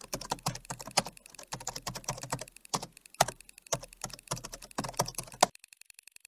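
Keyboard typing sound effect: quick, irregular keystroke clicks as the text is typed out. The typing stops about five and a half seconds in, leaving only a faint, fast, even ticking.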